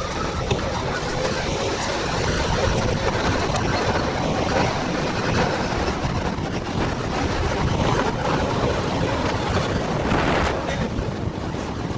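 Steady wind rushing over the microphone while riding a golf cart at speed, with the cart's running and road noise underneath.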